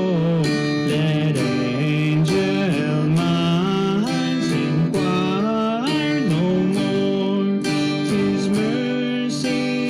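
A worship hymn sung to acoustic guitar accompaniment.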